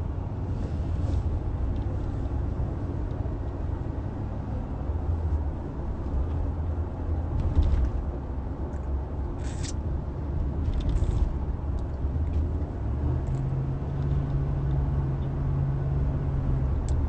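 Steady low rumble, with a few light clicks and a low steady hum that comes in for the last few seconds.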